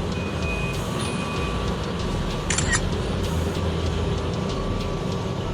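Steady low rumble of heavy mining machinery engines under background music, with a bright rattling cluster repeating about every four seconds.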